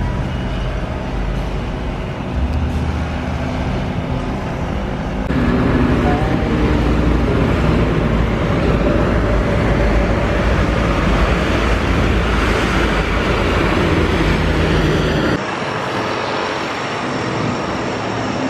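Road traffic: cars, trucks and motorcycles passing on a highway, with abrupt changes in the sound about five seconds in. About fifteen seconds in it switches to a Lockheed C-130 Hercules taxiing with its four turboprop engines running, a steady high whine over the engine noise.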